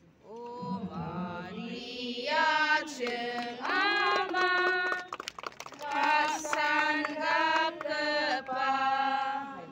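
A group of voices singing a hymn in long held notes, phrase after phrase with short breaks between them.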